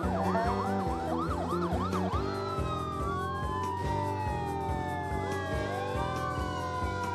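Emergency vehicle sirens: a fast yelp for about the first two seconds, then several slow falling wails overlapping, over background music with a steady beat.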